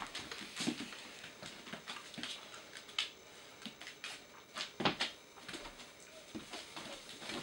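Young puppy moving about on carpet, sniffing and nosing at something on the floor: scattered light taps and rustles, with a brief louder clatter a little before five seconds in.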